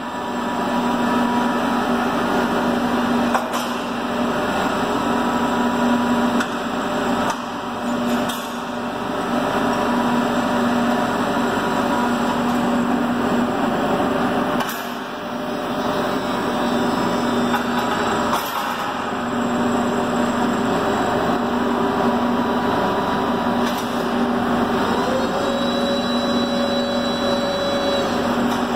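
Forklift hydraulics working a tyre-handling clamp attachment: a steady hum that cuts out and comes back several times as the controls are worked, with a few light knocks. A higher whine is added for about three seconds near the end, as the attachment is raised high on the mast.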